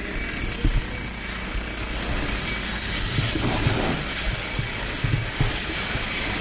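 A steady, high-pitched electronic alarm tone sounds without a break, over low rumbling and irregular knocks.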